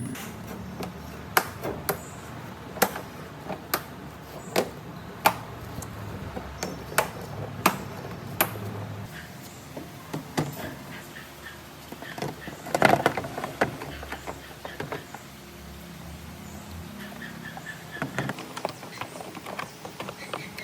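Sharp taps and knocks, about one a second for the first eight seconds, then a quick flurry of them about thirteen seconds in and a few more near the end.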